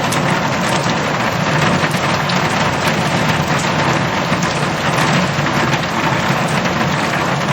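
Heavy rain drumming steadily on a metal roof: a dense, even patter of countless drop impacts.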